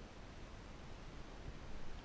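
Faint steady low rumble and hiss of open-air ambience, with a few soft low knocks and swishes near the end as a fishing landing net is pushed through the water.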